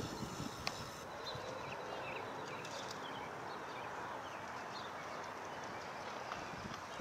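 Quiet outdoor ambience: a steady hiss with faint, scattered bird chirps. Wind buffeting on the microphone dies away at the start.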